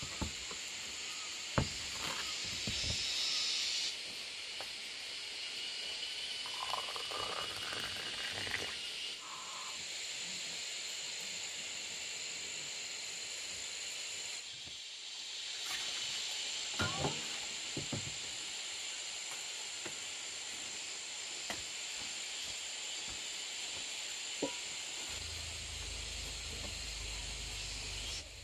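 Steady high-pitched drone of forest insects, with a few light knocks and taps from a bamboo cup being handled; a low rumble comes in near the end.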